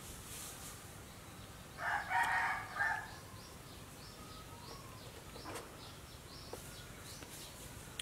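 A rooster crows once, about two seconds in, lasting about a second, over faint bird chirps.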